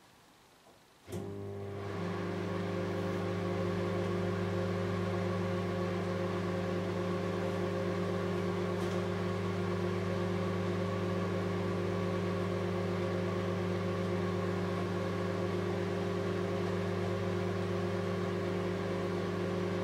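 A 700-watt microwave oven starts up about a second in and runs with a steady hum.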